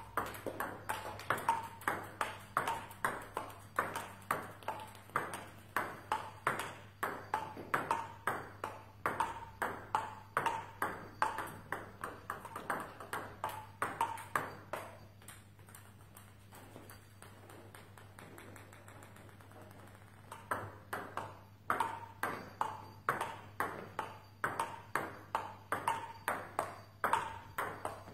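Table tennis ball knocked back and forth in a rally, its pings off the bats and table coming at about three a second. The rally stops about halfway through, and after a few seconds of quiet play starts again.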